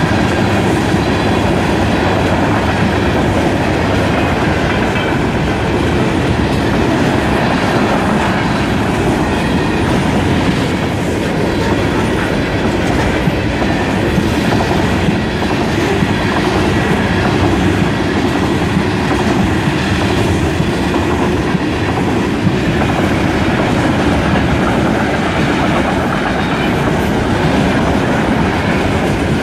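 Union Pacific mixed freight train's tank cars and boxcars rolling past quickly, wheels clattering over the rail joints and crossing in a steady, loud rush of wheel and car noise.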